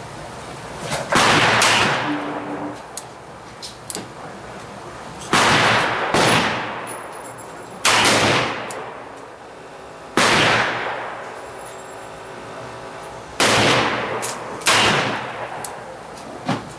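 Korth revolver fired double action, about eight loud shots at irregular intervals of roughly one to three seconds, each followed by an echoing tail. Fainter shots sound in between.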